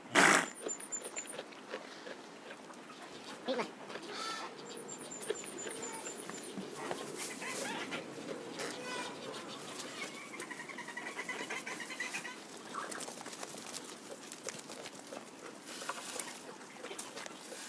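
A sharp knock at the very start, then two short runs of high, quick bird chirps, with scattered clicks and a pitched animal call about ten seconds in.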